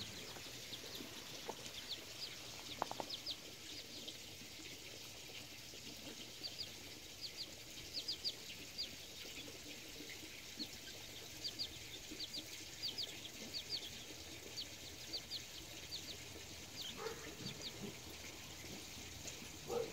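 Sebright bantam chicks peeping: short, high, falling peeps in quick pairs and runs throughout. A few lower clucks come near the end, likely from the hen with them.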